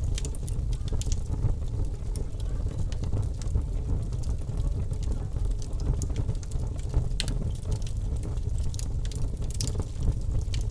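Log fire in a fireplace crackling: irregular sharp pops and snaps, a few louder ones past the middle, over a steady low rumble.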